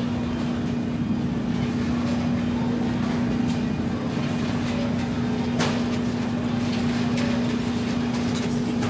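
Shopping cart rolling along a supermarket floor, making a steady rumbling noise over a constant low hum, with a sharp click about halfway through.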